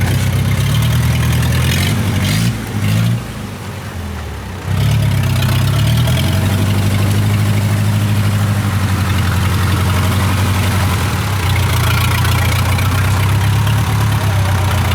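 Diesel engine of a tracked rice machine running steadily. It drops noticeably quieter for about two seconds a couple of seconds in, then comes back to full level.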